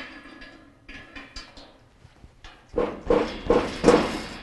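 A few light metal clicks, then about four quick knocks in a row near the end on the red steel frame of an AFF 990 workbench, with a short ring after each, as hands seat its parts and bolts during assembly.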